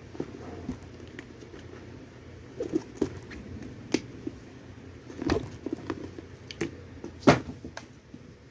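Handling of a leather handbag: scattered soft knocks and clicks as its flap and clasp are closed and the bag is tilted and moved, with one sharper knock about seven seconds in.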